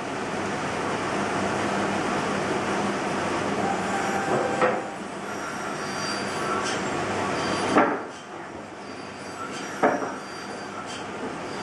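Carving knife whittling a pine Dala horse blank: a continuous rasping as the blade pushes through the wood, broken by three sharp snaps where cuts finish and chips break off, the loudest about two-thirds of the way in.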